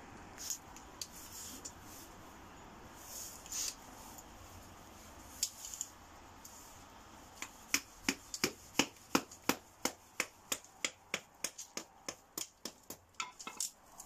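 Kindling sticks being chopped with a knife: a few scattered sharp cracks, then from about halfway a steady run of quick sharp knocks, about three a second.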